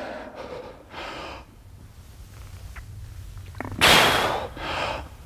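A man taking forceful bracing breaths under a loaded barbell during back squats: a faint breath about a second in, then a loud, sharp breath about four seconds in, followed by a second, weaker one. These are the big breaths he takes to brace his belly before each rep.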